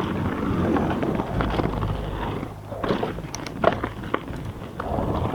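Mountain bike riding down a dirt trail: steady tyre noise over the ground, with scattered clicks and knocks from the bike, clustered about three to four seconds in.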